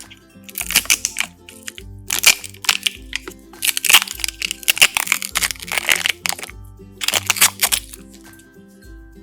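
Kinder egg packaging crackling and crinkling as it is handled and opened, in four bursts of rapid clicks over background music.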